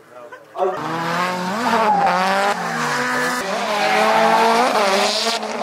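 Drift car's engine revving hard, its pitch rising and falling several times, with tyres squealing as the car slides sideways. It starts suddenly just under a second in.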